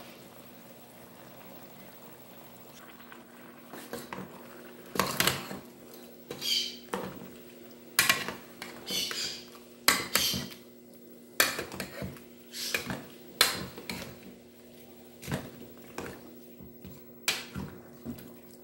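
Metal ladle knocking and scraping against an aluminium pot as sauce is spooned over pieces of fish, with small splashes of sauce. The clinks start about four seconds in and come at irregular intervals.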